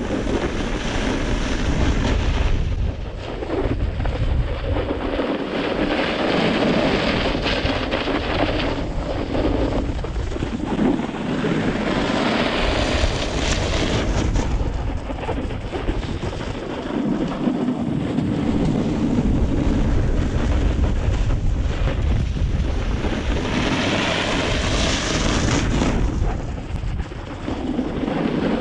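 Wind rushing over the microphone together with a snowboard's edge scraping across groomed snow, swelling and easing every few seconds with each slow carving turn.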